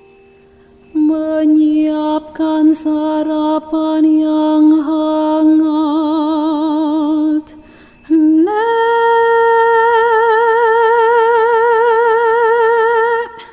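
A solo singing voice humming long held notes without words, wavering with vibrato: one long note, then a slide up into a higher note held to near the end.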